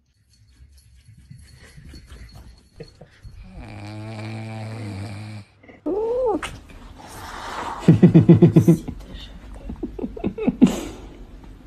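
Domestic cat sounds: a short meow about six seconds in, then a loud, rapid pulsing rumble close to the microphone lasting about a second.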